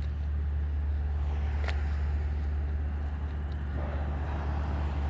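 A steady low engine hum under outdoor background noise, with one brief sharp squeak or click a little under two seconds in.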